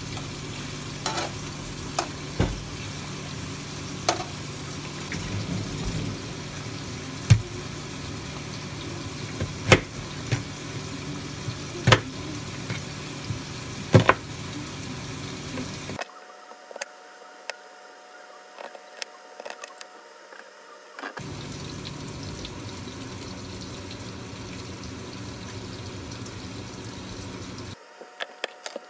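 Kitchen knife slicing an onion on a cutting board: sharp knocks a couple of seconds apart as the blade strikes the board, over a steady hiss.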